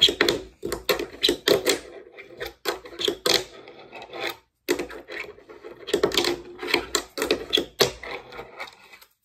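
Wooden fingerboard clacking and tapping repeatedly on a hard surface as tricks such as kickflips are attempted again and again: irregular clusters of sharp clicks with brief gaps between them.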